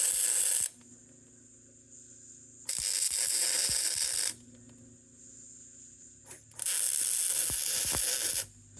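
Welding gun's arc crackling in three short bursts, tack welds on an aluminum exhaust pipe extension: one ending about half a second in, another about three seconds in and a last near the end. A faint steady hum fills the gaps between the tacks.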